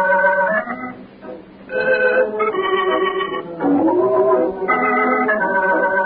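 Organ music: a short musical bridge of held chords that change about every second, with an upward sliding phrase about four seconds in.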